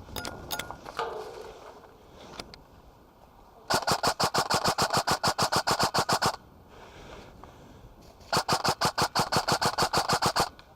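Airsoft M4-style electric gun firing two long full-auto bursts, a rapid, even string of cracks from the gearbox cycling at a high rate of fire. A few single clicks come just before them.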